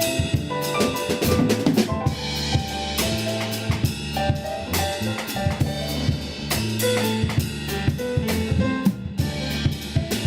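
Band music with a busy drum-kit beat and a bass guitar line playing steady low notes, with other melodic instruments above.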